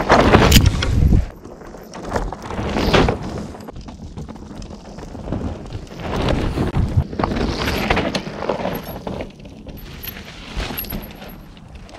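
Cube Stereo 160 electric mountain bike ridden past close by on a dirt trail: knobby tyres crunching and skidding over soil, loudest in about the first second as it goes by. Further rough swells of tyre noise follow, the last one near the end as the bike passes again.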